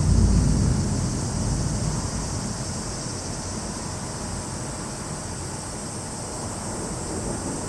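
Torrential rain hissing steadily, with a low rumble of thunder that swells at the start and slowly dies away over several seconds.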